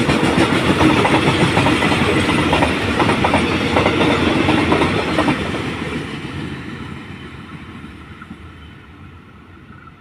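Freight train's wagons rolling past, wheels clattering over rail joints; the sound fades away from about halfway through as the train moves off.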